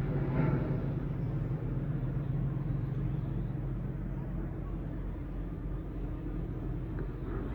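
Steady low rumble of distant town traffic heard from high up, with a brief higher sound about half a second in.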